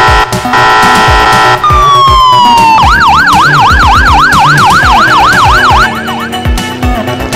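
Police siren sound effect over upbeat background music. A steady blaring tone gives way to a falling wail about a second and a half in, then a fast yelping siren runs for about three seconds before cutting off near the end, leaving the music.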